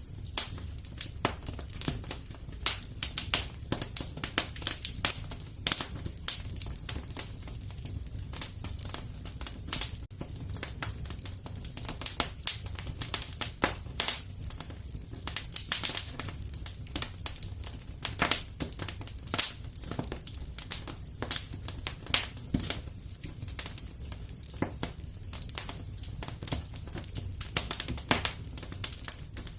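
Wood fire crackling and popping, with many sharp irregular snaps over a steady low rumble of flame.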